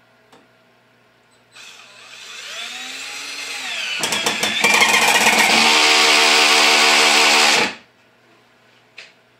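BLACK+DECKER 20V MAX (LDX120C) cordless drill driver driving a long drywall screw into wood. The motor whirs and grows louder as the screw goes in. From about four seconds the clutch, set at torque 10, slips and ratchets in a rapid chatter until it stops near eight seconds: the setting doesn't give enough torque to sink the screw.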